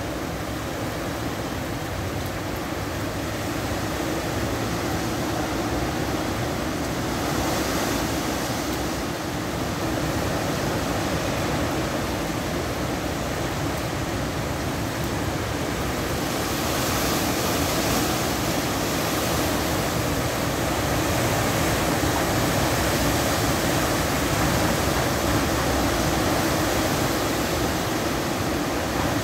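Hurricane Ian's wind and rain: a steady rushing noise that swells in gusts about seven seconds in and again from about sixteen seconds.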